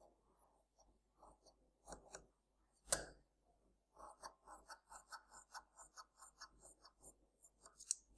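Large tailoring scissors cutting fabric: a few scattered snips and one sharper click about three seconds in, then a quick, even run of short cuts, about four to five a second, from about four seconds in.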